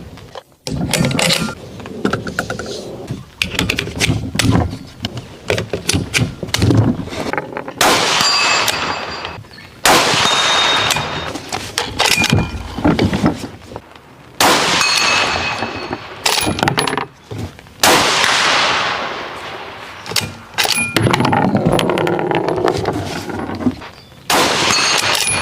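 Several rifle shots from a Daniel Defense Delta 5 bolt-action rifle. Each is a sharp crack with a long trailing echo. Metallic ringing tones follow some of the shots, with smaller clicks and knocks in between.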